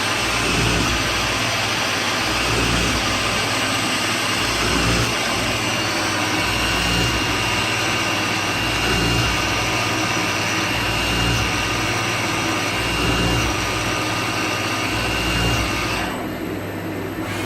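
CNC turning centre with driven tools running while it machines a differential case: a steady machine hum and hiss with a fixed high whine and a low throb repeating about once a second. About a second before the end, the high hiss drops away and the sound gets a little quieter.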